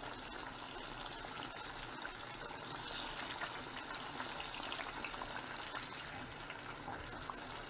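Cornmeal-coated fish fillets deep-frying in hot oil: a steady sizzle with fine crackling.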